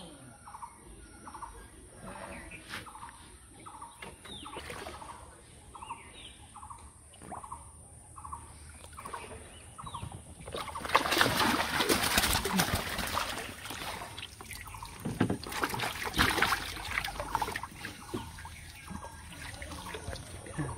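Water splashing and sloshing in two loud spells past the middle, from wading and grabbing fish in a shallow canal. Before that, a bird calls with short repeated notes, roughly one or two a second.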